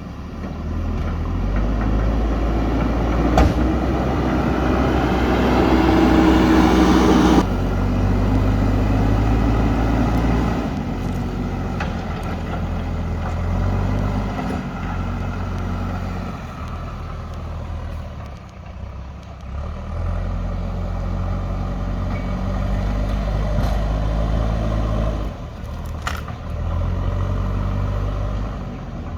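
JCB backhoe loader's diesel engine working, revving up under load for a few seconds then dropping back suddenly, and running on at working speed with rises and dips. A couple of sharp knocks stand out, one early and one near the end.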